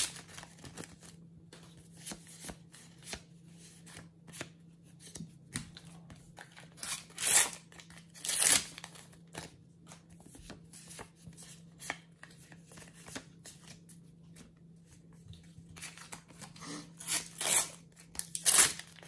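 Panini Euro 2020 sticker packets being torn open by hand and the stickers flicked through: a run of short ripping and rustling sounds of paper wrappers and stiff stickers. The loudest come about seven to eight and a half seconds in and again near the end.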